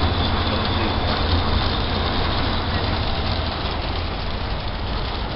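Steady low rumble and hiss of a passenger van, heard from inside its cabin.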